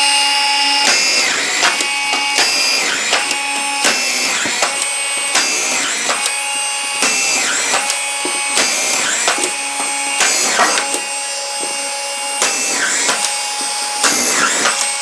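Keyang ASD-1800L 18V cordless collated (magazine) screwdriver running at high speed, driving a row of collated screws in quick succession, about one a second. Its motor gives a steady whine, broken by a click and a brief dip in pitch as each screw is fed and seated.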